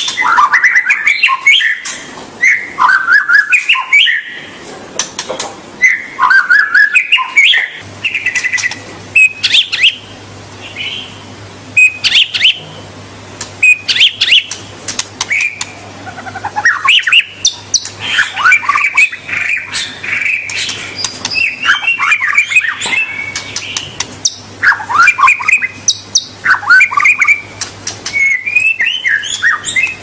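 White-rumped shama singing a long, varied song of whistled phrases and chattering trills that rise and fall, in bursts with short pauses, mixed with many sharp clicks.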